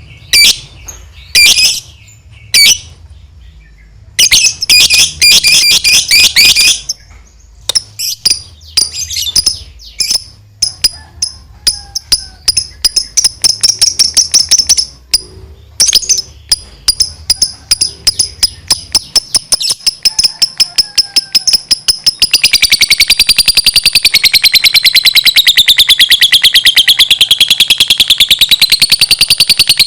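Lovebird singing: short bursts of rapid, sharp high chirps, then from about two-thirds of the way through a long unbroken chattering trill (the 'ngekek panjang') that wavers up and down in pitch.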